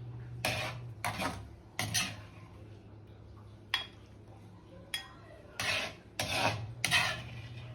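A spoon scraping and scooping in a cooking pot, about seven short scrapes a second or so apart, as the cooked chicken is dished out into a bowl. A low steady hum runs underneath.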